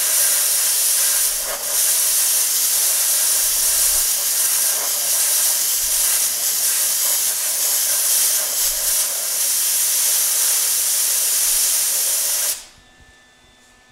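Compressed-air blow gun blasting a steady hiss of air onto a fresh weld to cool it. The air cuts off abruptly near the end.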